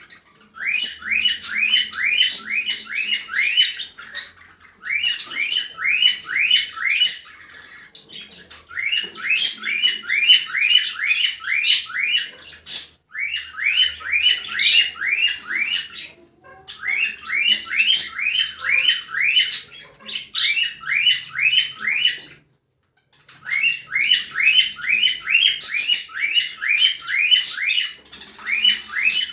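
Cockatiels calling in fast runs of short rising chirps, about four or five a second, each run lasting a few seconds with brief pauses between.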